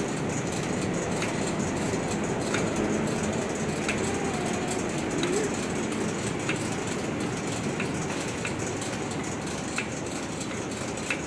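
Conveyor line in a plastic-bag printing plant running steadily, a constant machine noise with a light click about once a second.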